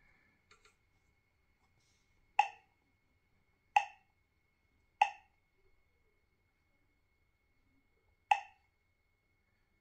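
Touch-feedback blips from a 7-inch GPS navigator as its on-screen menu buttons are pressed: four short, identical pitched blips. The first three come about a second apart, and the fourth follows after a pause of about three seconds.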